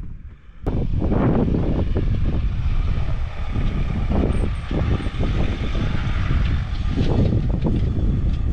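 A dual-cab ute towing an off-road caravan drives past across soft sand, its engine and tyres giving a steady rumble. The noise comes in suddenly about half a second in.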